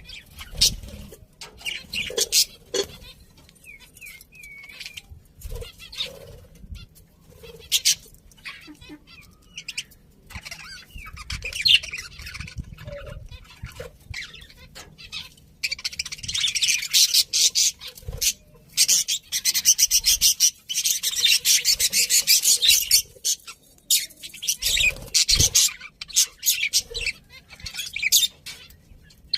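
Budgerigars chattering and chirping in quick runs of high calls, busiest past the middle, with occasional low thumps.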